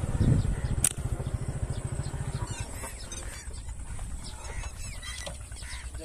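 A slingshot shot snaps once about a second in, over a low steady rumble that fades soon after. Birds then call with short arching chirps.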